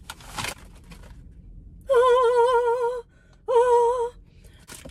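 A crunchy bite into a fried chicken piece just after the start. Then a voice sings a high note with a fast, even vibrato for about a second, and again for about half a second after a short break.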